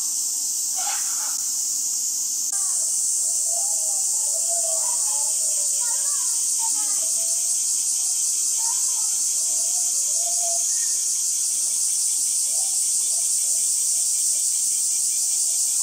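Steady high-pitched drone of insects, with faint distant voices and chirps underneath it.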